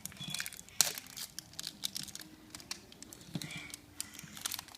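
Wrapper of a giant surprise egg crinkling and crackling in irregular rustles as it is handled and torn open, with a sharp click about a second in.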